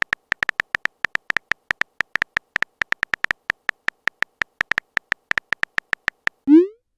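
Phone keyboard typing sound effect: a quick, irregular run of short, same-pitched ticks. About half a second before the end comes a short rising swoosh, like a message-sent sound.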